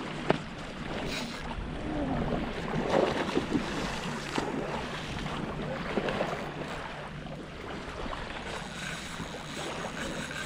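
Wind on the microphone and small waves lapping in shallow water, with a sharp click just after the start.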